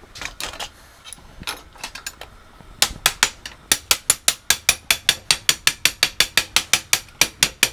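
Hot iron wagon-wheel tire clanking as it is set onto the wooden rim with tongs, then a hammer tapping it down in quick, even blows, about five a second, from about three seconds in.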